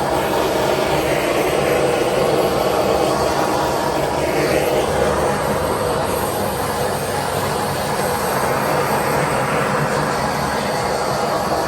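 Hot-air blower running steadily over wet acrylic pour paint to pop surface bubbles, a continuous even whoosh of fan and airflow.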